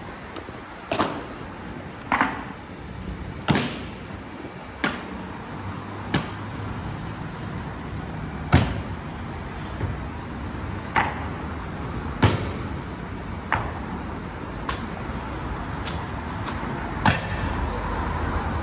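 Honor guards' boots striking the pavement in a slow ceremonial march: a sharp clack about every 1.3 seconds. Under it runs a steady low rumble of traffic that grows louder near the end.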